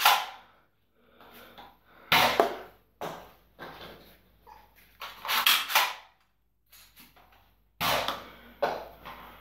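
Sharp plastic clacks and knocks from a cheap toy foam-ball blaster being cocked and fired, a few separate bangs with short quiet gaps between them.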